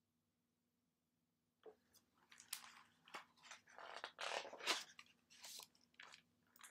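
Hardcover picture book being handled and its page turned: a quiet, irregular string of short rustles that starts about two seconds in, after near silence.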